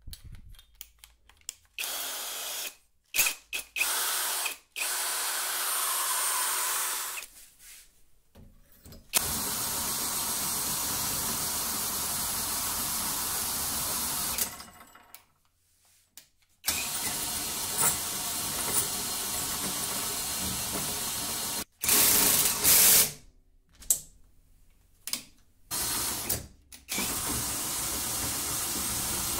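Greenworks cordless drill running in bursts, turning a bench vise's lead screw through a homemade socket adapter to wind the jaws open and shut. A few short bursts come first, then steady runs of several seconds each, with a brief louder burst a little past the middle.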